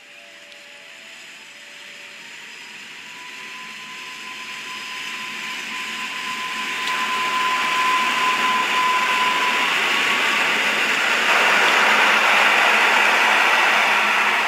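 Regional electric multiple unit pulling out and passing on the rails, its running noise growing steadily louder. A thin steady whine sounds through the first two-thirds.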